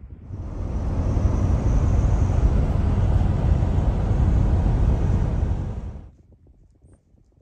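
Vehicle on the move: a loud, steady rumble that starts suddenly and cuts off about six seconds in.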